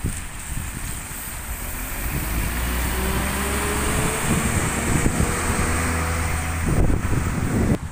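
An Alexander Dennis Enviro 400 double-decker bus pulls past at close range. Its diesel engine runs under load with a whine that rises steadily as the bus accelerates away, and its tyres hiss on the wet tarmac.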